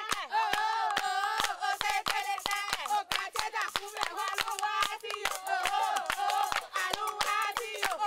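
High voices singing together over a steady rhythm of hand claps, several claps a second.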